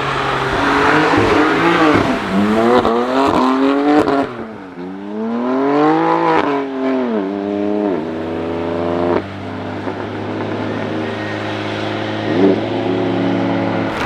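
Cars on the Nürburgring Nordschleife accelerating and passing one after another, engine notes climbing and dropping through gear changes. One engine note cuts off suddenly about nine seconds in.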